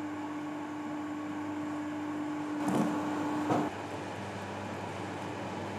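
Vibrating conveyor belt for sorting salted capers, running with a steady machine hum and rumble. Two short louder noises come around three seconds in, and a steady tone in the hum cuts off a little under four seconds in.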